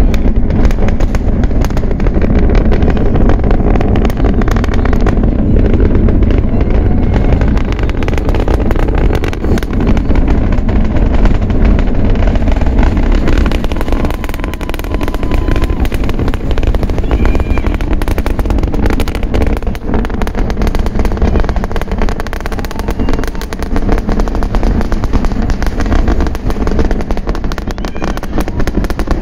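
SpaceX Super Heavy booster's Raptor engines during ascent: a loud, continuous low rumble full of sharp crackling.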